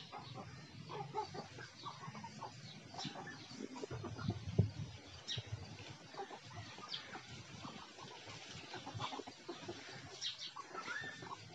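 A hen clucking off and on in short calls, with small scattered knocks and rustles and one louder thump about four and a half seconds in.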